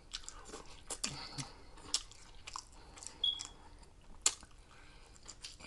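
A person chewing food, with faint mouth sounds and a few sharp clicks at irregular moments, the sharpest about four seconds in.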